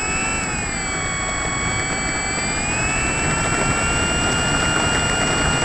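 Durafly Tundra RC plane's electric motor and propeller whining at takeoff power during its takeoff run, heard from on board. The whine holds steady with several tones, dipping slightly early on, over a rough low noise.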